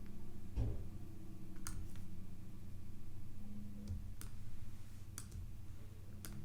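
A handful of sharp computer mouse clicks, some in quick pairs, over a steady low electrical hum.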